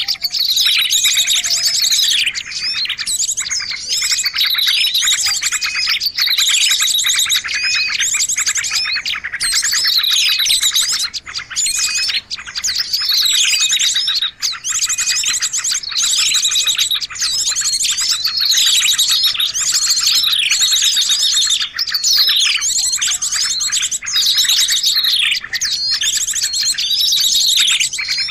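A bird-trapping lure recording of small songbirds calling: a busy, layered mix of high, rapid chirps and trills, with a falling call that comes back every second or two.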